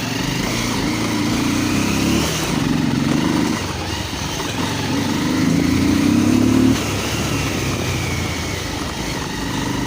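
Motorcycle engine running as the bike is ridden, pulling harder in three surges of throttle with easing off between them.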